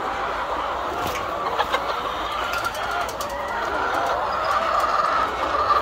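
A flock of laying hens clucking together in a continuous, overlapping chatter, with a few light clicks.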